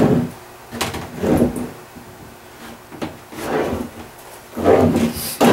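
A bar of base prep ski wax rubbed against the hot plate of a waxing iron in a few short scraping strokes, melting wax to drip onto the ski base.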